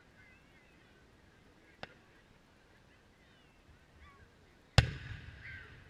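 Distant fireworks: a faint pop a little under two seconds in, then one sharp shell burst near the end, its boom rumbling away over about a second. Faint high chirping sounds run underneath.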